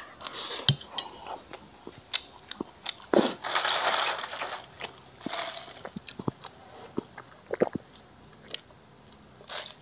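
Close-miked chewing and crunching of crispy fried pork and rice, with many short, sharp crunches and clicks scattered through, a denser spell of crunching a few seconds in.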